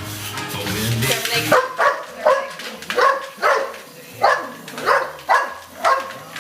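A dog barking repeatedly, about two barks a second, starting about a second and a half in. It is barking at a wind-up Dalek toy.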